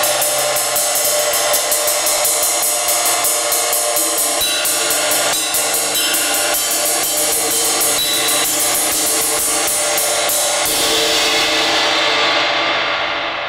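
Zildjian 22-inch A Custom ride cymbal, its cracked edge cut away in a V, played with a wooden drumstick in a rapid, steady ride pattern. About eleven seconds in the strokes stop and the cymbal is left ringing, its high shimmer fading first.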